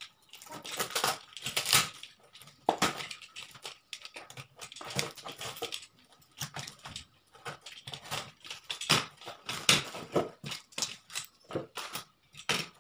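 Irregular tearing, scraping and crinkling of tape and packaging as the taped end of a fishing-rod shipping tube is picked open by hand, in uneven bursts with short pauses.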